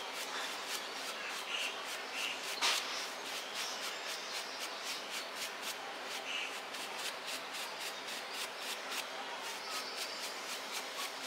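Stiff-bristled brush scrubbing over the plush fur of a giant teddy bear in quick, repeated strokes, several a second, to brush out dust.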